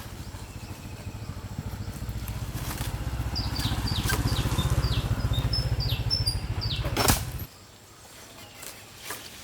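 A small engine running with a fast, even low pulsing that swells a little and cuts off suddenly about seven and a half seconds in. Short high falling chirps from a bird come through the middle, and a sharp knock sounds just before the engine stops.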